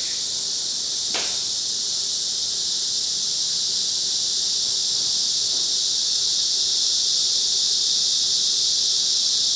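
A steady, high-pitched chorus of insects droning without a break, with a single soft click about a second in.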